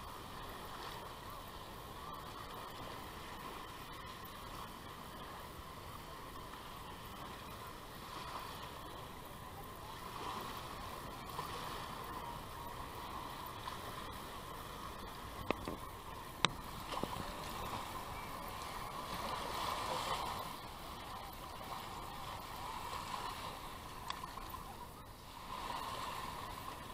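Small waves washing up on a sandy beach: a steady wash that swells now and then, with a couple of light knocks about midway.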